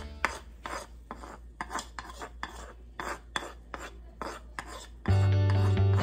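A metal spoon scraping a thick white paste out of a clear bowl into a pot of soup, in short repeated strokes about three a second. Background music comes in loudly about five seconds in.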